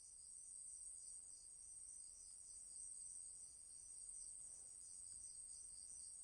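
Faint crickets chirping: a steady high trill with an evenly repeating pulsed chirp beneath it.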